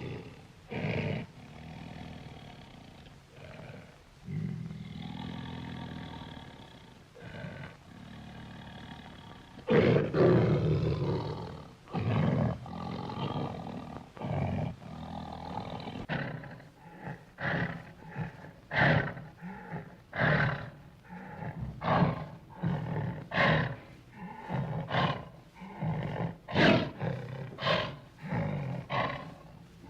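Bear roar and growl sound effects: drawn-out growls, with a loud roar about ten seconds in. From about sixteen seconds a quick run of short roaring calls follows, one or two a second.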